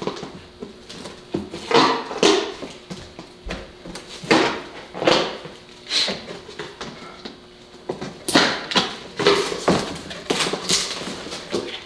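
A new radiator's cardboard box and packing being opened and handled by hand: irregular rustling, scraping and tearing, about a dozen short noisy strokes.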